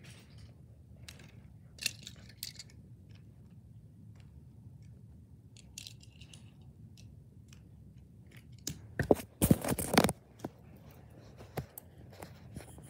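Handling noise: scattered light clicks and rustles as toy cars and the phone are moved about over a rug, with a denser, louder burst of clattering and rustling about nine seconds in.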